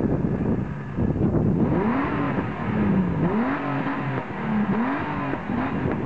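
Ford Sierra engine revved in repeated blips, its pitch rising and falling about once a second while the car rolls slowly.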